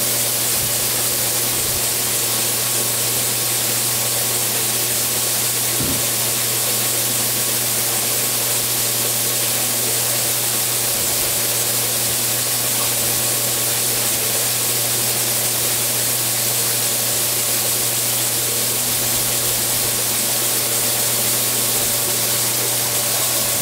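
Univerco jet vegetable washer running: a steady hiss of pressurised water spraying from its jets, over a steady low machine hum.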